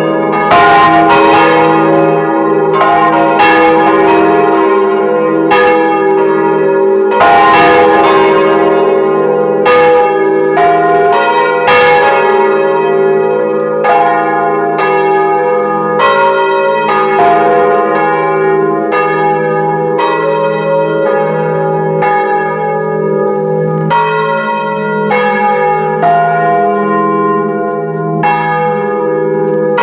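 Swinging church bells of a four-bell peal cast by the Causard foundry of Colmar, tuned F, A-flat, B-flat and C, ringing together close up inside the belfry: clapper strikes every half second or so in an uneven overlapping rhythm over a continuous deep hum.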